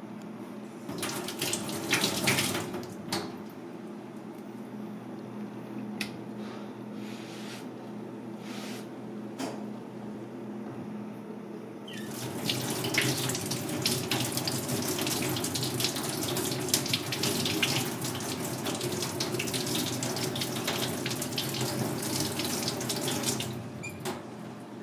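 Tap water running from a faucet into a stainless steel sink and splashing over a turban shell rinsed under the stream; it starts about halfway through and cuts off shortly before the end. Before it, a few short scraping sounds and a couple of sharp knocks.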